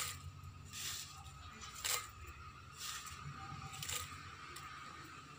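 Pieces of cut lemon-tree leaves dropped by hand into a steel mixer-grinder jar: soft crinkly rustles and light taps, about one a second.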